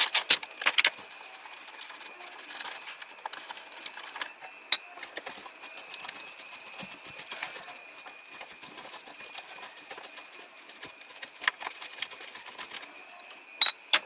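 Ratchet wrench clicking rapidly for about the first second, then faint scattered clinks of tools on metal, with a few sharper ticks near the end.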